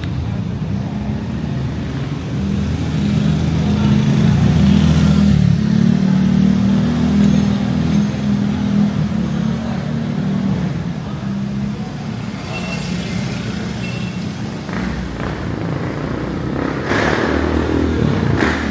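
A motor vehicle's engine running close by, a low steady hum that grows louder a few seconds in and eases off after about ten seconds, over general street noise.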